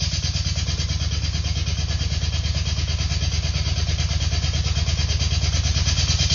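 Dial-up modem connecting: a harsh, steady rushing hiss over a heavy, fast-pulsing low buzz.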